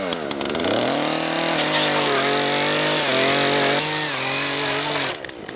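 Two-stroke chainsaw engine revving up in the first second, then held at high revs with a few small shifts in pitch, cutting off about five seconds in.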